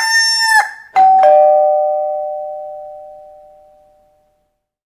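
The end of a rooster's crow, then a two-tone doorbell chime: a higher note and, a quarter second later, a lower one, ding-dong. It rings out and fades away over about three seconds.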